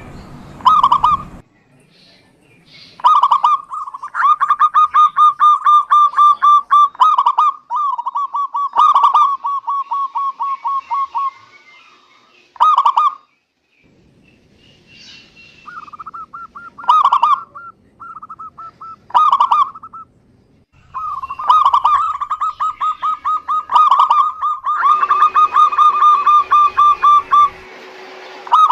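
Zebra doves (perkutut) cooing: long runs of quick, rolling coo notes, several a second, broken by louder stressed notes and a couple of short pauses.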